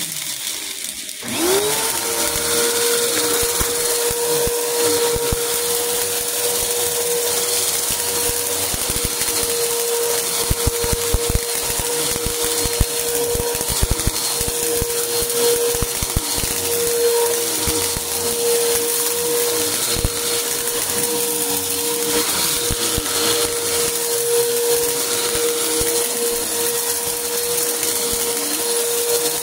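Upright vacuum cleaner motor spinning up about a second in and then running with a steady hum. Over it, many small crunching clicks of bits of debris being sucked up from the carpet.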